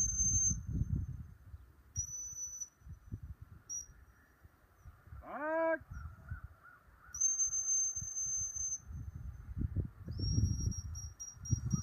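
Dog-training whistle blown in several steady high-pitched blasts: short ones early on, a longer one past the middle, then a run of quick toots near the end. These are signals directing a retriever working at a distance. A single short shouted command comes about halfway, and wind rumbles on the microphone.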